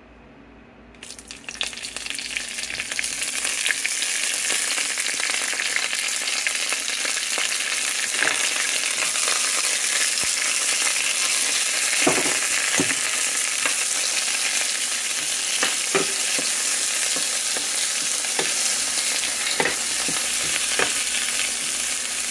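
Dried red chiles, tomato, onion and garlic sizzling as they brown in a little hot oil in a nonstick frying pan. The sizzle starts about a second in, builds over the next couple of seconds and then holds steady, with occasional clicks and scrapes of a spoon stirring the pan.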